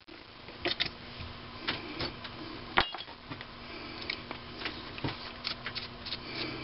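Irregular light clicks and clinks of metal as a small aluminium part is taken out of a lathe's chuck and handled, over a steady low hum.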